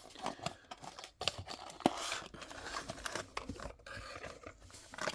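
Diecast model car packaging being handled and turned over: rustling and scraping with scattered light clicks, one sharper click a little under two seconds in.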